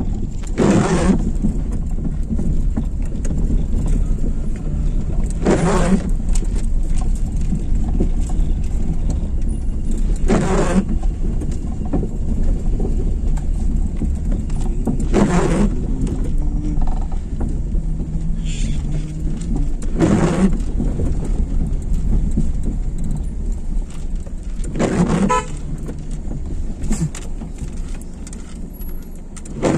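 A steady low vehicle rumble, with a short, louder sound coming back at an even pace about every five seconds.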